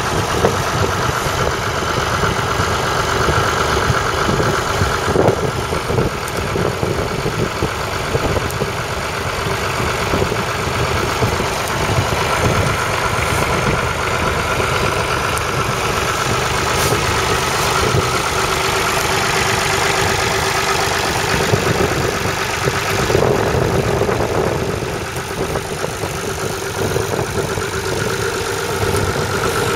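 1961 Massey Ferguson 35's 2.5-litre three-cylinder diesel engine idling steadily.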